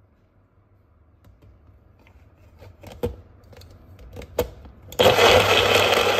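Plastic knocks and clicks as a Magic Bullet cup of pancake batter is set upside down onto its motor base, then about five seconds in the motor starts blending with a loud steady whir. The cup is not screwed tight onto its blade base, so batter leaks out into the base.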